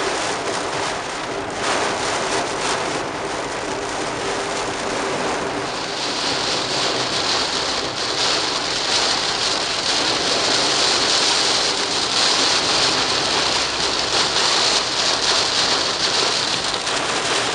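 Heavy rain on a moving car's windshield and body, with the hiss of wet road spray, heard from inside the car. The hiss grows louder and brighter about six seconds in.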